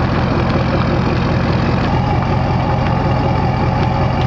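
Ford Super Duty pickup truck's engine running steadily at low speed while the truck is backed up to a weight-distribution hitch. A higher steady tone joins the engine about two seconds in.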